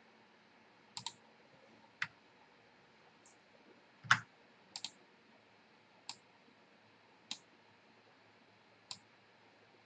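Computer mouse clicking: about eight sharp single clicks spread a second or so apart, with a quick double click near the middle. The click at about four seconds in is the loudest.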